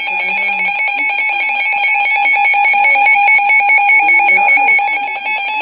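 Emergency Alert System attention signal: a loud, steady electronic alarm tone, with speech faintly underneath. It drops away sharply near the end.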